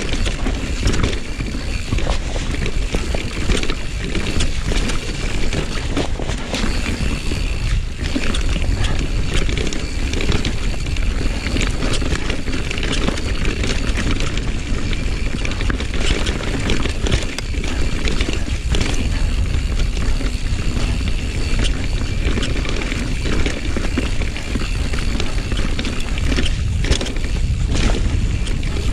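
Rocky Mountain Slayer full-suspension mountain bike running fast down a dirt trail: tyres rumbling over dirt and roots, and the bike rattling and clattering over many small bumps. A constant low rumble of wind on the helmet camera's microphone runs under it.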